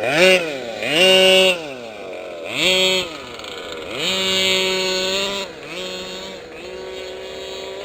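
Small two-stroke engine of a gas-powered 1/5-scale RC off-road vehicle revving in repeated bursts: the pitch sweeps up, holds briefly and falls back about five times, with the longest burst near the middle.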